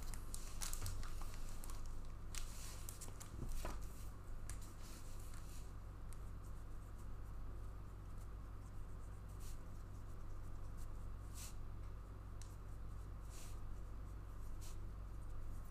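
Light rustling and scattered soft clicks of trading cards and their packaging being handled, over a steady low hum.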